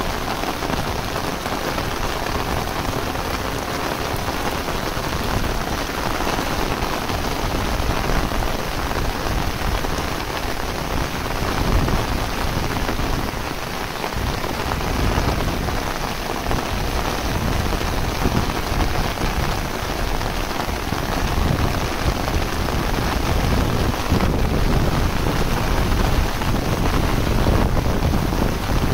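Heavy rain falling steadily, a dense even hiss, with an uneven low rumble underneath.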